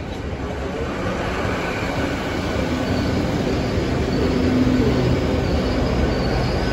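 GWR Class 800 bi-mode train running slowly past close by along the platform, a steady rumble and hum that grows louder, with a faint high squeal from the wheels starting about halfway through.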